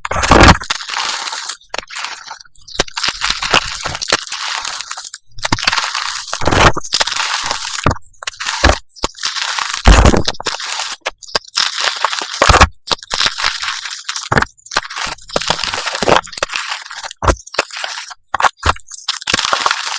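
Reformed gym chalk pieces being crushed and crumbling, one dense crunch after another with short breaks between them, at a sped-up pace.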